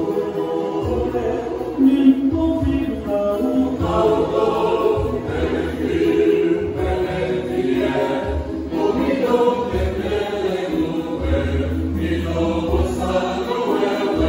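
A choir singing in many voices.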